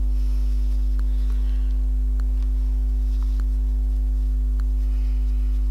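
Steady low electrical hum with a stack of buzzing overtones, at an unchanging level, with a few faint light ticks.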